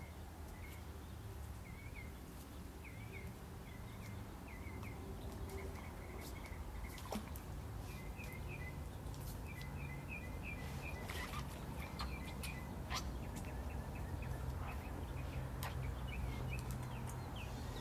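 A small bird chirping over and over in short, quick notes, thickest in the second half. Scattered sharp clicks and a low steady hum run underneath.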